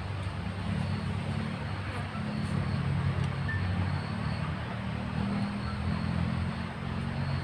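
Steady low rumbling ambience with an even hiss over it, and a few faint short high tones.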